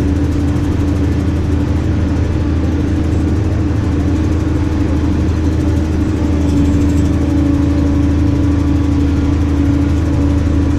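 New Holland tractor's diesel engine running steadily, heard from inside the cab, with a steady humming tone over the low engine drone. It gets slightly louder about six seconds in.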